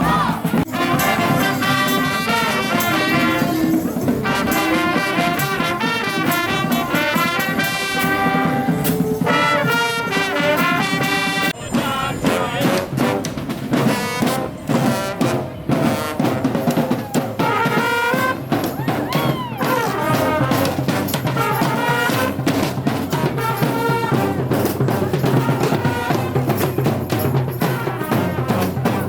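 Street brass band playing: trumpets and trombones over drums keeping a steady beat. Near the middle the horns briefly drop back, leaving mostly the drums, before coming in again.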